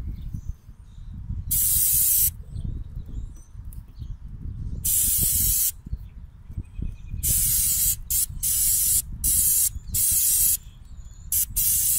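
Aerosol chain cleaner sprayed onto a motorcycle drive chain in a series of short hissing bursts, two spaced apart and then several in quick succession near the end. Wind rumbles on the microphone throughout.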